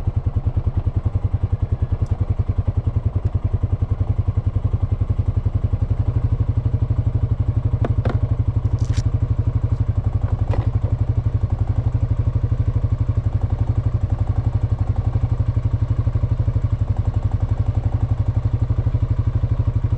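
Honda FourTrax Foreman ATV's single-cylinder four-stroke engine running at a steady cruising speed, with a deep, even exhaust pulse. A few brief clicks come midway.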